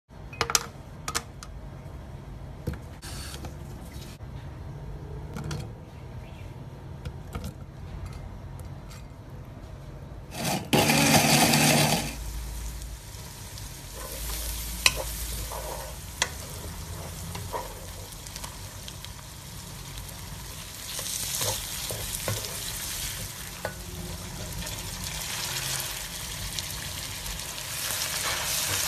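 A few sharp clicks near the start, then a loud rushing burst of about a second and a half about eleven seconds in. After that comes steady sizzling of spice paste and then chayote sticks stir-fried in a wok, with the wooden spatula scraping and knocking, the frying growing louder toward the end.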